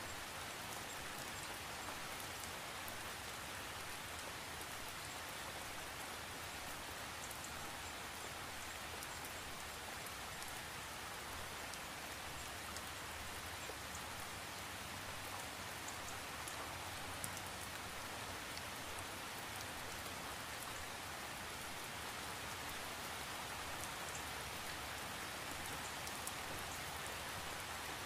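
Steady rain: an even hiss with scattered small ticks of individual drops.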